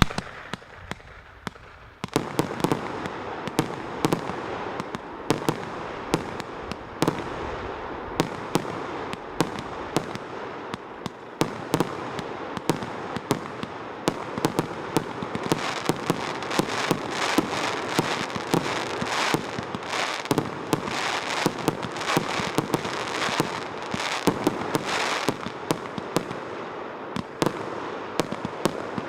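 "Lava" firework (SP038100) going off: a few single pops, then from about two seconds in a dense, continuous run of shots and bursts over a steady crackle.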